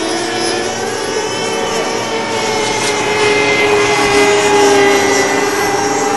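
Engines of several radio-controlled racing power boats running at high revs, a mix of steady, high-pitched whines that shift in pitch. It gets louder about four to five seconds in as two boats pass close at speed.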